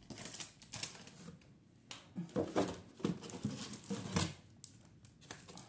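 Handling noise of craft supplies and their plastic packaging: a series of short crinkles, rustles and light knocks as items are moved and set down.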